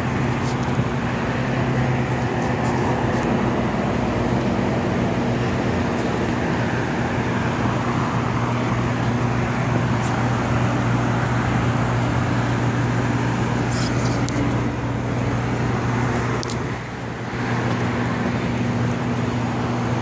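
Steady hum and rushing fan noise of a newly installed York packaged rooftop air-conditioning unit running. It goes briefly quieter near the end.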